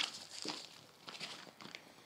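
A Labrador puppy playing with a ball being held out to it: scattered clicks, scuffs and rustles, the loudest a sharp click right at the start.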